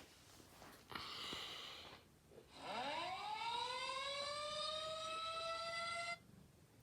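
Tornado siren sound from a siren app on an iPad, played through the tablet's speaker. The siren tone winds up quickly from low to a steady high pitch, holds for about three and a half seconds, then cuts off abruptly. A brief hiss comes about a second in, before the siren.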